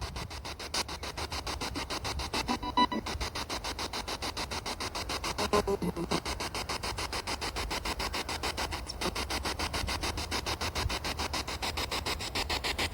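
Spirit box radio sweeping through stations: choppy static pulsing about five times a second, with brief snatches of broadcast sound about three and six seconds in.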